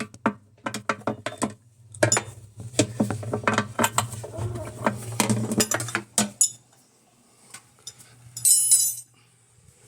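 Hard parts clinking and knocking together in quick clusters as they are handled, over a steady low hum, with a short hissy scrape a little before the end.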